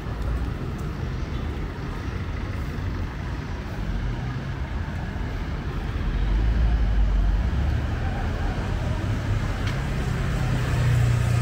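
Low hum of a motor vehicle engine running on a city street, getting louder about halfway through.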